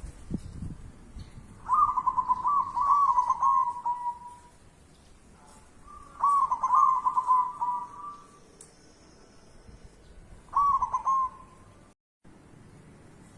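A bird singing three phrases of rolling, warbling coos, the first two about two seconds long and the last one short. There is a low thump just after the start.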